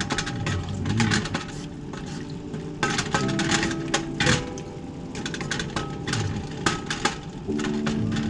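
Wooden spoon stirring a wet, chunky sauce in an aluminium pot, with irregular scraping and knocks against the pot's sides and bottom.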